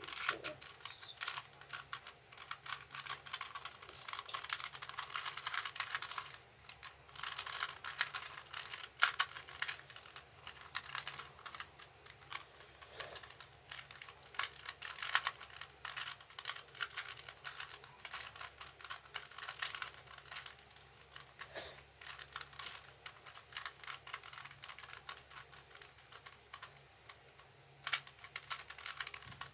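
Plastic 2x2 puzzle cube being twisted by hand during a solve: a rapid, irregular run of clicking turns with short pauses.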